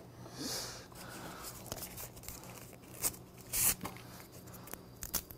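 Faint tableware handling: a small glass being moved and wooden chopsticks picked up, with a few short, sharp handling noises about three seconds in.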